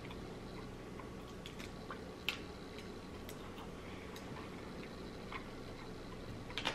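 Close-up chewing of a mouthful of sushi, with faint scattered clicks of wooden chopsticks; one sharper click a little over two seconds in.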